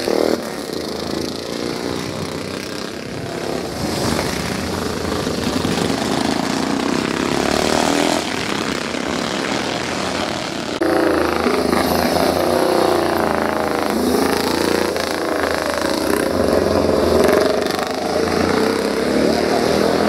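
Vintage racing motorcycles passing one after another on a street circuit, their engines revving up and down as each goes by.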